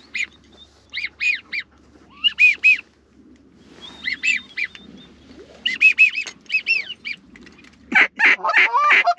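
A hand-blown goose call imitating Canada goose honks and clucks in short groups of two to four notes, called to draw in an approaching flock. About eight seconds in, the notes turn into a faster, louder run of calling.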